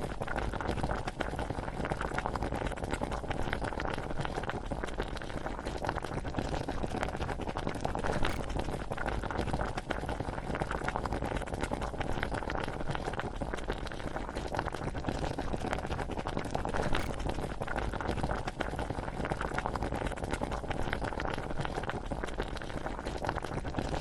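A pot of water and rice at a rolling boil, bubbling and popping densely and steadily. It is recorded to stand in for a bubbling cauldron.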